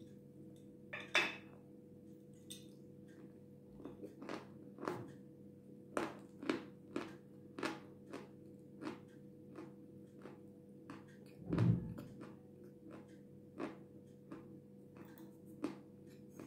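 Close-up chewing of dry, powdery white edible clay (the kind called Jasmin): a steady run of crisp crunching clicks at an easy chewing pace, with one louder, deeper thump about two-thirds of the way through.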